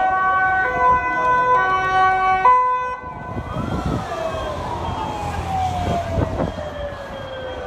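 Emergency vehicle sirens. For the first few seconds several two-tone sirens overlap, each alternating between two pitches. About three seconds in they stop, and a single siren goes on with one long, slow glide, rising briefly and then falling.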